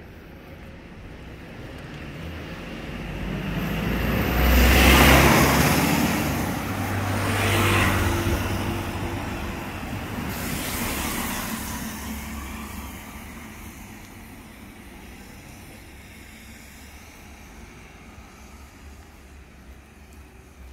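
Road vehicles passing by one after another, three passes that each swell and fade, the first the loudest, over steady background traffic.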